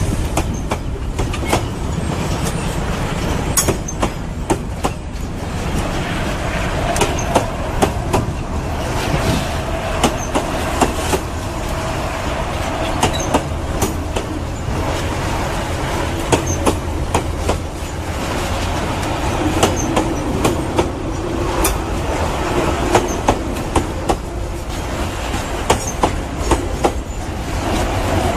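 Freight train rolling past, its wagons' wheels clicking over rail joints over a steady low rumble, with a thin wheel squeal that comes and goes.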